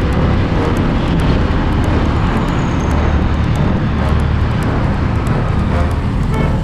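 Motorcycle engine running steadily at riding speed, with wind noise rushing over the microphone.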